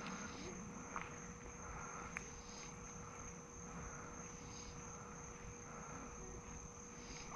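Faint insect chorus at the water's edge: a steady high-pitched trill, with a softer call swelling about every two seconds. Two light clicks come in the first few seconds.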